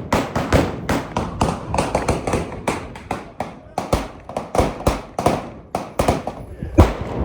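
Gunshots from several guns firing at once on a shooting range, an irregular run of sharp reports, several a second, each with a short echoing tail.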